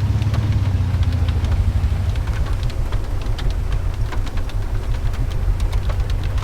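Steady low rumble of a vehicle, with scattered sharp taps of raindrops hitting it.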